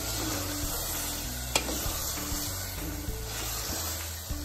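Crushed mutton bones sizzling as they fry in oil in a pressure cooker pot, stirred with a wooden spatula, with one sharp knock of the spatula on the pot about a second and a half in. Soft background music plays underneath.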